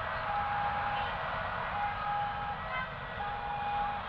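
Two-tone siren alternating between a higher and a lower note, each held a little under a second, over a steady wash of traffic noise.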